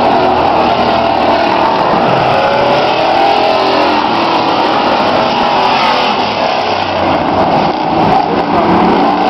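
Several demo race trucks and cars running hard around a speedway oval, their engines revving with pitches gliding up and down as they come through the turns.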